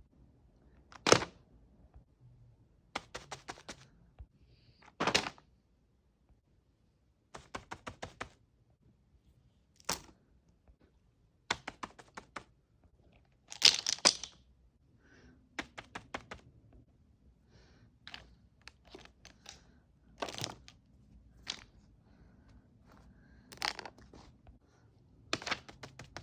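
Fidget toys being clicked, snapped and popped close up: single sharp snaps alternating with quick runs of small clicks and pops, with short quiet gaps between them.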